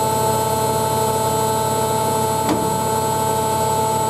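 Washing machine running with a steady whine of several high, fixed tones over a hum, with a single brief click about two and a half seconds in.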